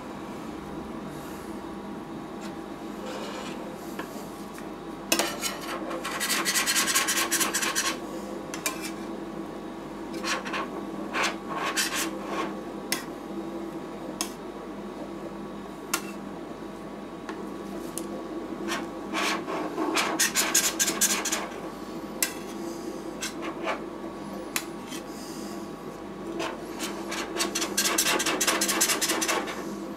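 Metal spatulas scraping across the stainless-steel cold plate of a rolled ice cream machine, pushing frozen ice cream up into rolls in several bouts of quick scraping strokes. Under it the machine runs with a steady hum.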